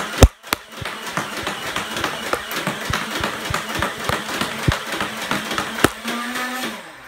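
Nerf Rhino-Fire blaster firing foam darts fully automatically from its twin motor-driven flywheel barrels: a loud click, then a fast run of shots over the whirring motors for about five seconds. Near the end the firing stops and the flywheels keep whirring on their own.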